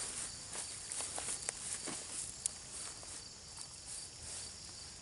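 Crickets chirring steadily, with a scatter of light clicks and taps as strips of venison are handled on a wooden stick rack.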